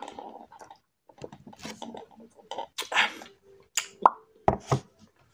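Man drinking a soft drink through a straw from a paper cup: short slurps and swallows, then several sharp mouth pops and clicks about four seconds in.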